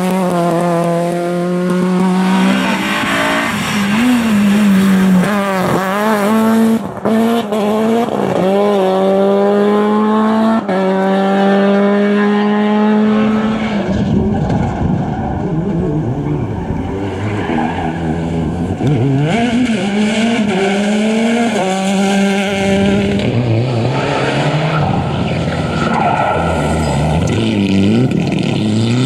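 Rally cars driven flat out, one after another: engines revving hard up through the gears with sharp drops at each shift and brief lifts, with tyres squealing and sliding on loose surfaces. A Citroën C2 rally car is heard first, then a Peugeot 208 rally car from about halfway, and a Mitsubishi Lancer Evolution sliding on dirt near the end.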